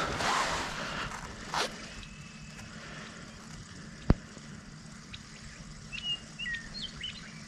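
A few short, quick bird chirps near the end over a quiet outdoor background, with a single sharp click about four seconds in.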